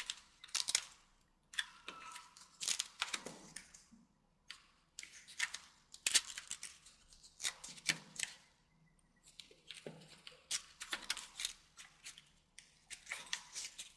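Folded origami paper rustling and flicking in short, irregular bursts as its corner flaps are flipped over by hand.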